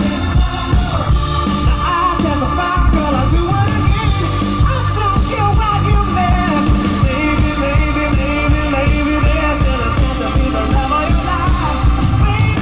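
Live band music with a lead vocal singing over a steady beat.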